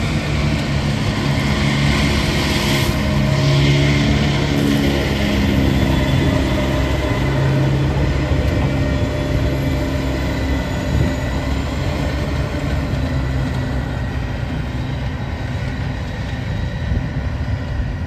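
New Holland self-propelled swather with a 20-foot head running as it cuts hay, a steady engine drone that swells a little a few seconds in, with wind buffeting the microphone.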